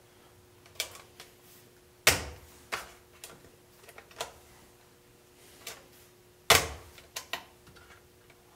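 Clicks and knocks from a plastic Traxxas pistol-grip RC transmitter being handled on a metal workbench: picked up, its switch and wheel worked, and set down. There are two louder knocks, about two seconds in and again past six seconds, among lighter clicks, over a faint steady hum.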